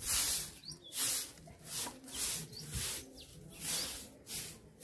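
Repeated short swishes, about two a second, with small birds chirping briefly in between.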